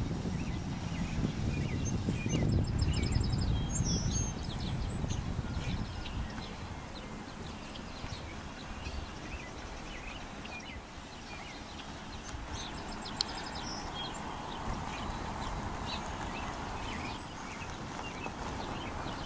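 Outdoor ambience of birds chirping and trilling in short scattered calls, over a low wind rumble on the microphone that is heaviest in the first few seconds. A faint steady hum comes up in the last few seconds.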